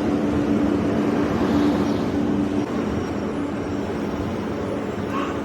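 Passenger train running, a steady rumble with a low, even hum.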